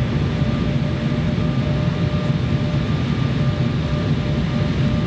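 Steady cabin noise inside an Embraer 170 jet airliner on its landing approach: the even rumble of its GE CF34 turbofan engines and the airflow, with a faint steady whine.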